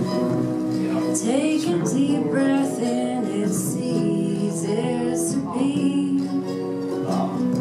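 Live acoustic folk-country song: a woman singing over strummed acoustic guitar and upright bass. The voice comes in about a second in.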